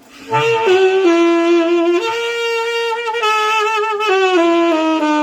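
Saxophone playing a short phrase of several held notes with vibrato, with the player singing into the horn at the same time, a voice-with-sax effect. Voice and sax blend so that it comes out as one sound.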